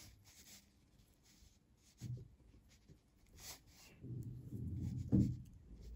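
Knitting needles and yarn rubbing and scraping faintly as 2x2 rib stitches are worked by hand, with a dull low bump about five seconds in.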